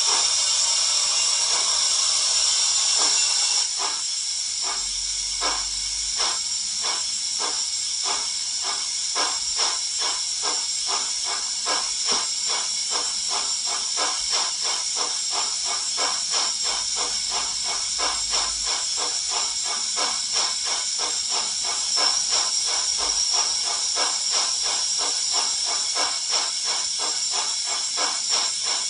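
Steam locomotive sound from a YouChoos sound decoder in a Hornby Royal Scot model, played through its small speaker. A steady hiss of steam comes first. About four seconds in, exhaust chuffs start slowly and quicken to a steady beat of about three a second as the engine gets away, with the hiss going on underneath.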